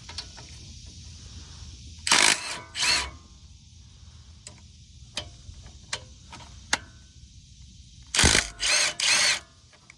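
Milwaukee cordless impact gun spinning out two 16mm brake caliper bolts: two short bursts about two seconds in, then three more near the end, with light clicks of handling between.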